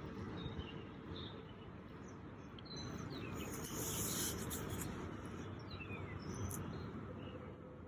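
Steady chorus of 17-year periodical cicadas, with a few short bird chirps over it.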